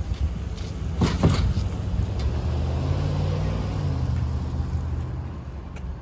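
Pickup truck towing a jet ski trailer driving slowly past: its engine a steady low hum that fades near the end, with a brief clatter about a second in.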